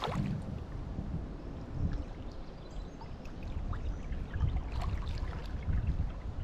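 Water splashing and trickling around a kayak, with small scattered splashes over a steady low rumble.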